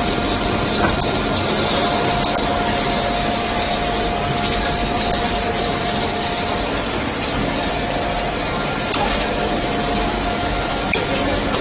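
Automated radiator-making machinery running with a steady mechanical noise and scattered light clicks, with a faint steady whine through the first half.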